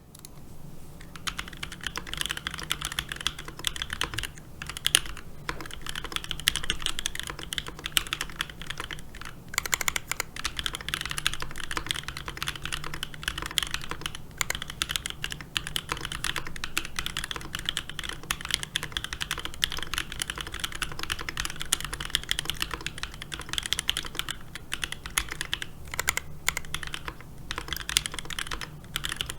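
Steady fast typing on a Switch Couture Alice-layout mechanical keyboard with an acrylic plate. It has NK Cream linear switches lubed with Krytox 205g0 and filmed, under EPBT 9009 PBT keycaps. The typing breaks off only for a few brief pauses.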